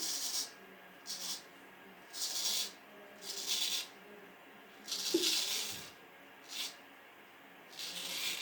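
W.J. Guy vintage straight razor shaving a nine-to-ten-day beard: about seven short, hissy scraping strokes, each under a second, as the blade cuts through the stubble.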